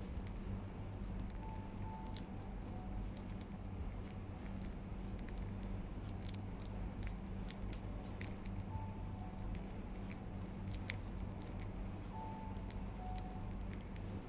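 Budgies biting and nibbling lettuce leaves: an irregular scatter of small, crisp clicks and crunches from their beaks, over a steady low hum.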